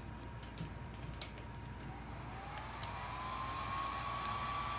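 A few light clicks, then about two seconds in a handheld heat gun starts up. Its fan motor whine rises in pitch as it spins up and then runs steadily while it blows hot air onto a piece of EVA foam to soften it.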